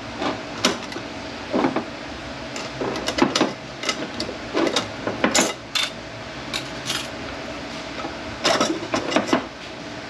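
Metal transmission parts clinking and knocking irregularly as they are handled and set down during a teardown of a Mercedes 722.9 automatic transmission, each knock ringing briefly.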